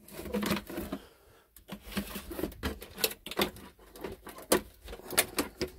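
Irregular clicks and light knocks of hands handling the plastic body and parts of an RC rock crawler.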